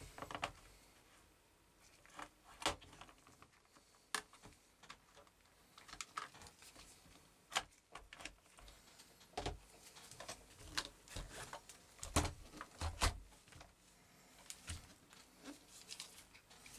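Scattered plastic clicks and knocks as gloved hands handle a clear plastic parts box and a small screwdriver on a laptop, with a few heavier thumps a little past the middle as the laptop is turned over onto the wooden table.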